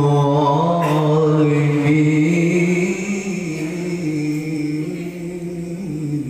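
A man reciting the Quran in melodic tilawah style into a microphone, drawing out a long ornamented phrase with a slowly wavering pitch that steps up about two seconds in.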